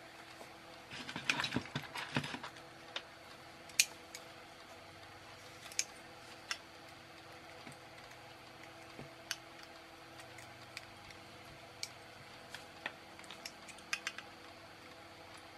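Side cutters snipping the excess component leads off a soldered circuit board, about ten sharp clicks at irregular intervals. The first couple of seconds hold a rustle of handling.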